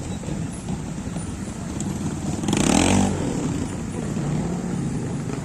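Trials motorcycle engine running at low revs, blipped repeatedly, with one sharp rev about two and a half seconds in.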